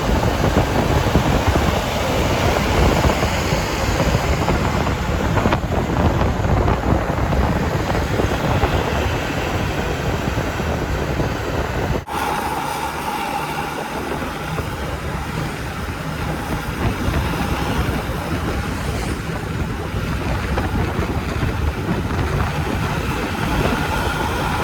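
Road vehicle noise under heavy wind buffeting on the microphone. The low rumble drops abruptly about halfway through.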